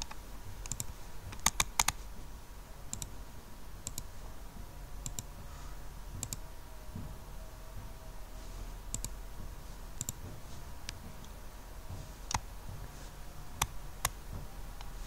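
Computer mouse buttons clicking irregularly, about a dozen single and paired clicks, while sketch lines are selected and deleted in CAD software. Under the clicks runs a steady low hum.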